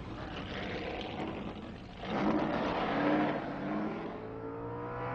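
Race car engine revving and accelerating. It swells to its loudest about two seconds in, then its pitch climbs again near the end.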